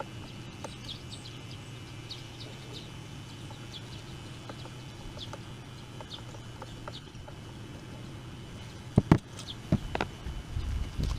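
Birds chirping and chickens clucking over a steady low hum. Near the end come a few sharp knocks and a short rumble.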